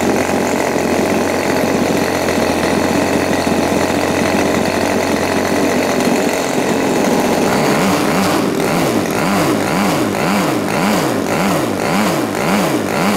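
Turnigy TP31-T 31cc twin-cylinder two-stroke gas engine running steadily and turning a wooden propeller. From about eight seconds in, its note wavers up and down about one and a half times a second.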